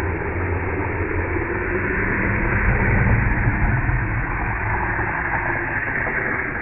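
Longboard wheels rolling and scraping on asphalt as the rider comes down past close by. The noise swells to its loudest about three seconds in, then fades.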